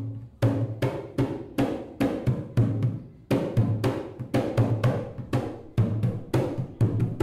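Zabumba, a large low-pitched bass drum, struck in a steady rhythm of about three strokes a second, with a short break about three seconds in.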